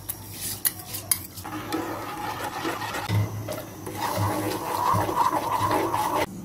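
A metal spoon clinks twice against an aluminium pot, then stirs and scrapes through milk in the pot while custard mixture is poured in. The stirring grows louder about four seconds in and cuts off suddenly near the end.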